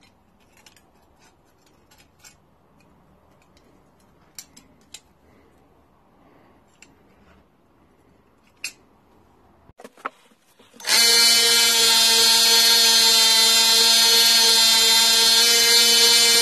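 Small bench belt sander switched on about two-thirds of the way in and running steadily and loudly with a high whine. Before it starts, a few light clicks of the metal knife being handled.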